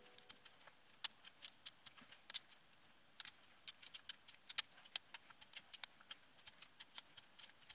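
Irregular light metallic clicks and ticks, a few a second, as parts in the open cylinder head of a Yamaha SRX600 engine are handled by a gloved hand.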